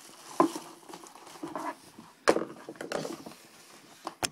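Hands crumpling the torn plastic shrink-wrap from a trading-card box and handling the opened cardboard box. It is crinkling and rustling with a few sharp knocks: about half a second in, about two seconds in (the loudest), and near the end.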